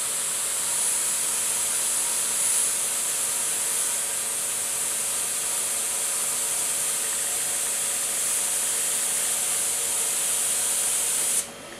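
Badger Renegade Velocity airbrush spraying paint: compressed air hissing steadily through the nozzle, cutting off suddenly near the end as the trigger is let go.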